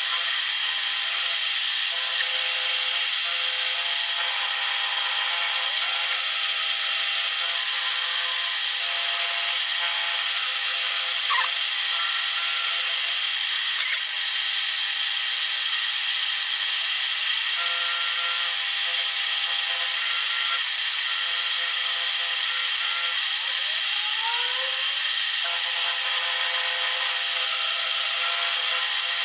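Power tool running steadily with a high motor whine as a small angle-iron steel part is worked down. A couple of brief ticks come partway through.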